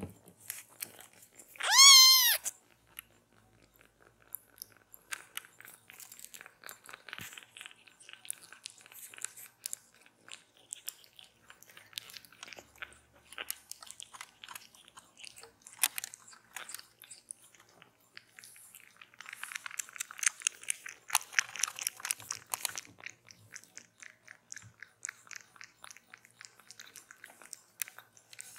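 A young tabby kitten gives one loud, high meow about two seconds in, then suckles at a milk feeding bottle with a long run of quick clicks and smacks, denser and louder for a few seconds past the middle.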